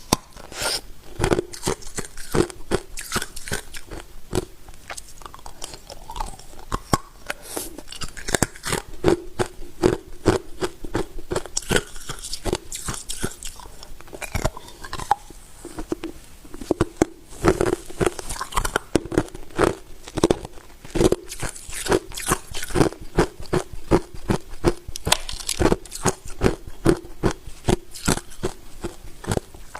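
A person biting and chewing hard ice, a quick run of sharp crunches one after another, without pause.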